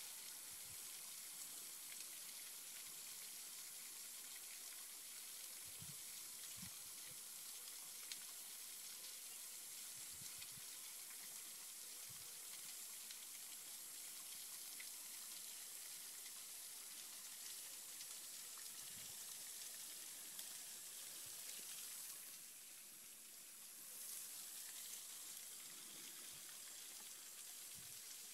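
Faint, steady hiss of water trickling and falling down a rock cliff face, with a few soft low bumps.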